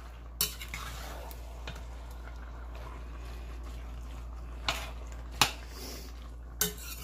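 A slotted spoon stirring chicken chow mein in an enameled cast-iron pot, with soft scraping and four sharp clinks of the spoon against the pot; the loudest comes about five and a half seconds in.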